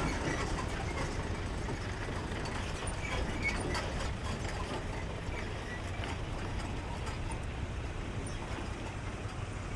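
Steady low rumble of large trucks' engines running, with faint scattered small sounds over it.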